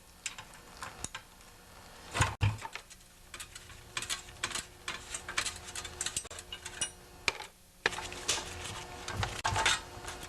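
Hand tools and loose sheet-metal shrouds of a Tecumseh 10 hp engine clicking and knocking as the shrouds are unbolted. The clicks and light metallic knocks come at an uneven pace, with a louder knock about two seconds in.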